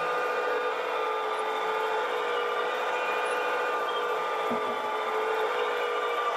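Steady high whine of a radio-controlled model excavator's electric hydraulic pump, held at an even pitch while the boom lowers the bucket to the ground, with a faint knock about halfway through.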